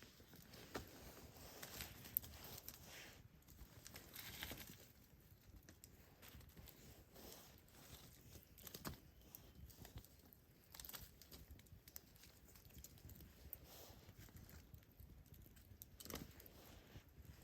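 Faint, irregular footsteps crunching and rustling through gravel and scrub, with scattered small clicks.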